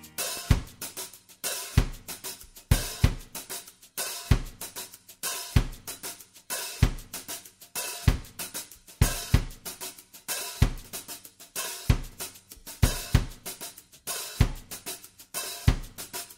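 Background music: a drum kit playing a steady beat of kick, snare and hi-hat cymbals, with a strong low thump a little over once a second and lighter hits in between.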